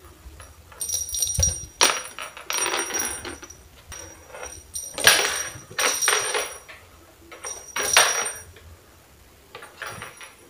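Small jingle bell on a fluffy cat toy jingling in irregular bursts as a cat grabs, kicks and rolls with it, along with the scuffle of the play.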